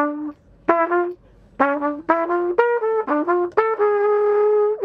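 Trumpet playing a short melodic phrase of about eight notes, the first few spaced by short pauses, then running together into a note held for about a second near the end.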